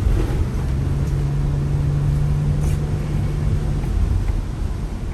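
Vehicle running: a low, steady rumble with an engine hum that drops away about four seconds in.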